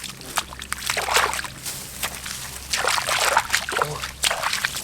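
Shallow water sloshing and splashing in irregular bursts about a second apart, as hands work through it catching fish.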